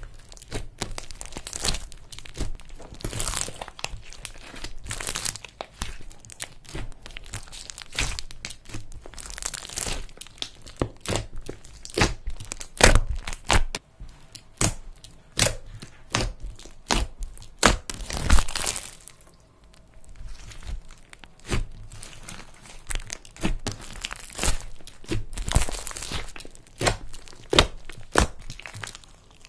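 Slime being squeezed and stretched by hand, giving a dense run of irregular crackles and pops.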